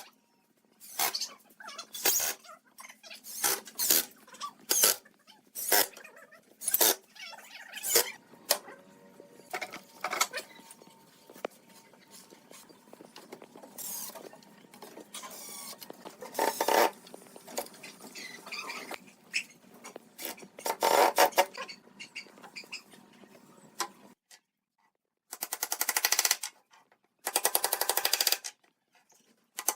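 Hand work on wood: irregular sharp knocks and scraping strokes. After a short pause near the end come three rapid rattling bursts, each about a second long.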